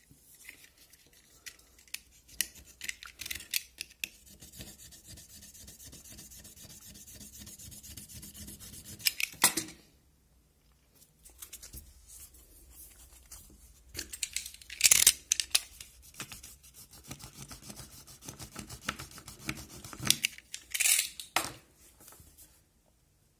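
Hard plastic and a box cutter being handled on a tabletop: scattered clicks and rubbing, a stretch of steady scraping lasting several seconds, and a few sharper knocks of plastic, the loudest about nine, fifteen and twenty-one seconds in.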